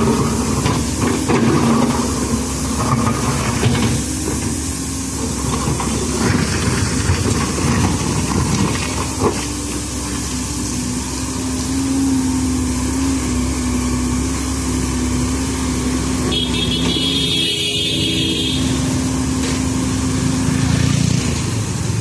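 Diesel engine of a Komatsu PC130 hydraulic excavator running steadily as the machine works its boom and bucket, with road traffic noise mixed in. A high-pitched tone sounds for about two seconds, about three-quarters of the way in.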